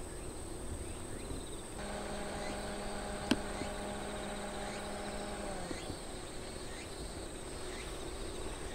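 Insects, crickets among them, chirring in a steady high drone. From about two seconds in, a low engine hum runs for a few seconds and then dips and fades.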